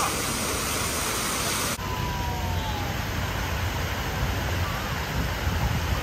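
Steady rushing and splashing of a large fountain's water jets falling back into the pool. About two seconds in the sound changes abruptly and a low rumble comes in underneath.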